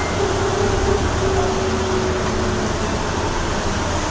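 Cabin noise inside a moving hybrid double-decker bus: a steady low rumble and road noise, with a thin steady whine that fades out about two-thirds of the way through.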